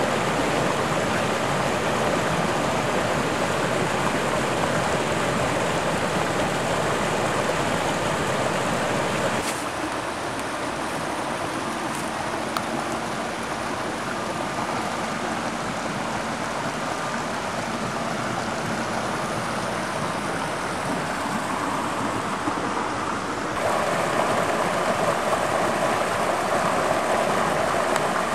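A forest creek running and splashing over rocks: a steady rush of water. It drops a little about a third of the way in and grows louder near the end.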